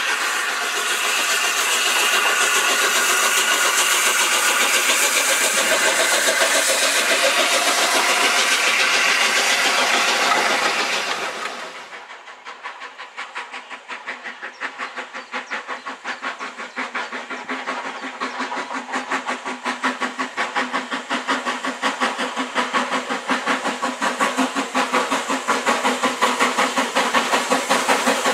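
A steam locomotive working hard, its exhaust a loud, continuous rush. After a sudden cut about twelve seconds in, BR Standard Class 4 4-6-0 No. 75029 approaches under steam, its rhythmic exhaust beats growing steadily louder as it nears.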